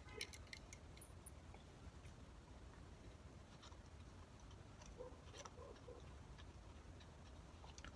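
Near silence: room tone with a few faint scattered clicks, most around the start and again about five seconds in, from hands working a small bolt out of a motorcycle turn-signal mount.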